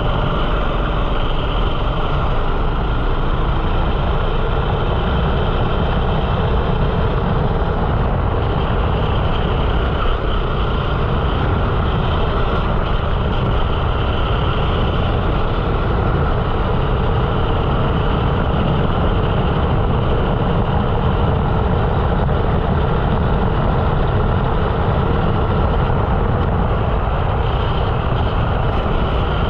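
13 hp rental kart's single-cylinder four-stroke engine running continuously at racing speed, heard onboard. The higher part of the engine note swells and fades every few seconds.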